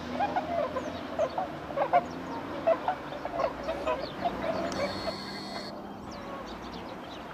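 A flock of swans calling: many short calls overlapping one another, thinning out after about four and a half seconds.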